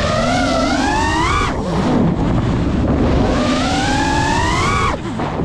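FPV racing drone's motors whining, the pitch rising and falling with the throttle, over wind rush. The whine drops off sharply about one and a half seconds in and again near the end as the throttle is cut, then climbs back.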